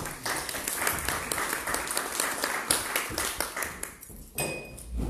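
Audience applauding, a dense patter of clapping that lasts about four seconds and then dies away.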